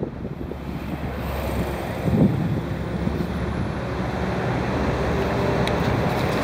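Steady low hum of a river cruise ship's engines, with a rushing noise like wind on the microphone slowly growing louder.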